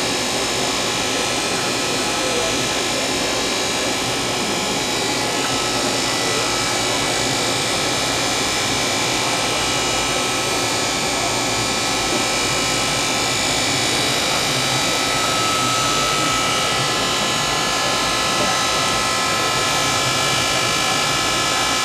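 Fadal VMC 2016L CNC vertical machining centre moving through its axes: a steady mechanical whir with several high, steady whining tones.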